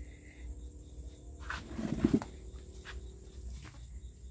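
Hands rummaging through wet seagrass in a plastic crate while sorting crabs and shrimp: faint rustles and small clicks. There is a brief low grunt-like sound about two seconds in.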